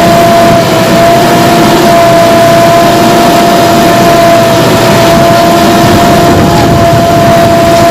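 JCB backhoe loader's diesel engine running under load as its hydraulic arm pushes an overturned truck upright, loud and steady with a constant whine over the engine rumble.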